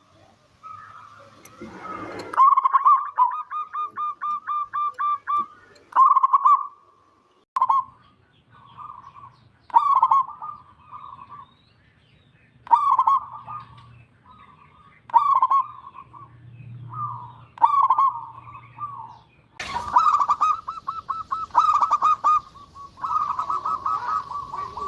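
Zebra dove (perkutut) cooing over and over in short, rapidly pulsed phrases, one every couple of seconds, from a local bird that sings freely. A hiss of noise joins about twenty seconds in.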